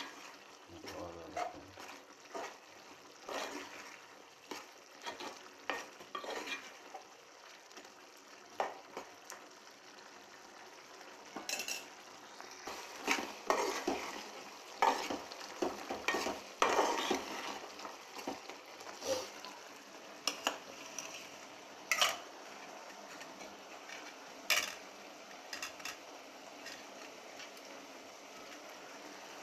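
Steel spoon stirring a thick curry in an aluminium pot, scraping and knocking against the pot in irregular strokes, busiest around the middle. A few sharp metal clinks come later.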